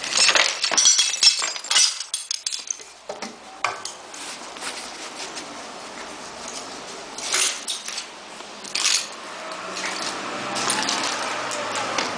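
Sharp clinks and knocks, many in quick succession for the first three seconds, then two more near the middle, with a steady low hum building near the end.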